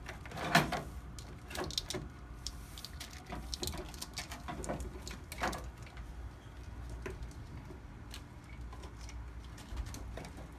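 Plastic wiring-harness connectors being handled and plugged in: scattered clicks and knocks with some rustling of the wiring loom, the loudest click about half a second in.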